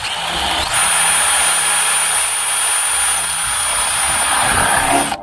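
DeWalt cordless drill running under load with a small twist bit, boring a pilot hole through a car bonnet panel. A steady high whine joins about a second in, and the drill stops abruptly as the bit breaks through.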